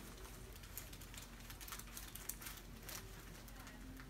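Faint rustling with scattered light clicks, as of someone shifting and being handled on a treatment table.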